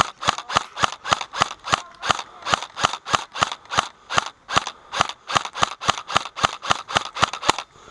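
Airsoft rifle firing single shots in quick, even succession, about four sharp cracks a second, stopping just before the end.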